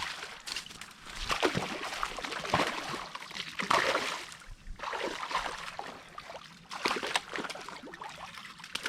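Water splashing and sloshing in irregular surges as a hooked bass fights on the line at the surface.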